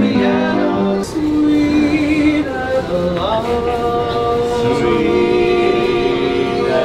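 Barbershop quartet singing in close harmony, holding long chords and sliding up into a new chord about three seconds in.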